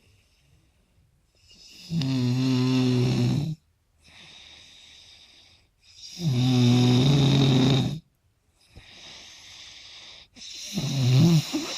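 A person snoring heavily: three loud, low snores about four seconds apart, each lasting around two seconds, with softer breaths between them. The last snore wavers in pitch.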